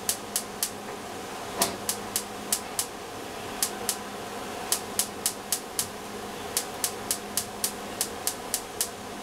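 Gas hob spark igniter clicking over and over, in runs of about three to four sharp clicks a second with short pauses, while the burner fails to light. A steady hum sits underneath.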